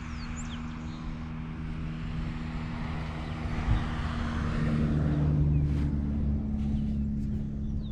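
Engine running with a steady hum that rises a little in pitch and loudness about halfway through. A few short bird chirps come at the start.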